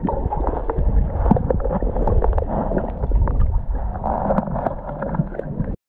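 Muffled rush and slosh of water heard through a GoPro held underwater in shallow sea, with scattered small clicks. The sound cuts off suddenly near the end.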